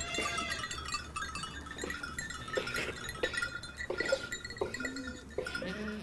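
Goats moving about a pen, with scattered light clinking and tinkling.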